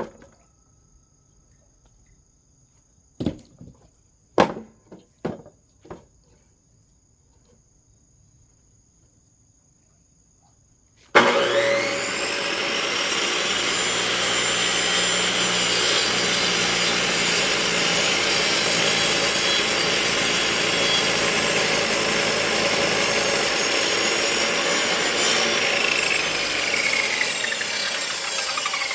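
A few sharp knocks, then about eleven seconds in an electric firewood-cutting circular saw starts up, its pitch rising as the blade spins up, and runs loud and steady while cutting through wood; near the end its pitch falls as the blade starts to wind down.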